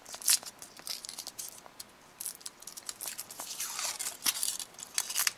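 Foil wrapper of a Kinder Surprise chocolate egg being peeled and torn off by hand: irregular crinkling and small tearing sounds, busier in the second half.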